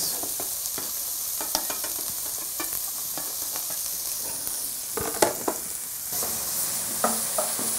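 Diced red onions frying in hot vegetable oil with whole cumin seeds in a stainless steel pan: a steady sizzle with scattered light clicks. A wooden spoon starts stirring them in the later part.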